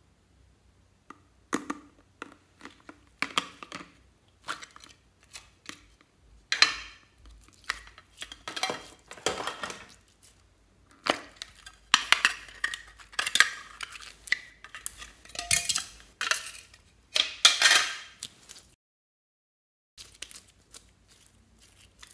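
Plastic watermelon-slice slime containers clicking and clattering in the hands as they are opened, along with sticky clear glitter slime crackling and squelching as it is peeled out of them. The sound comes as a long string of short, sharp clicks and crackles, then stops suddenly near the end.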